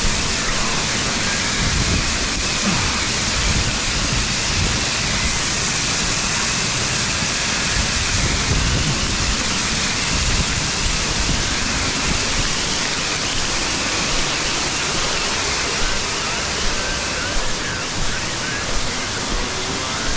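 Waterfall rushing: a loud, steady, even hiss of falling water, with irregular low rumbles underneath.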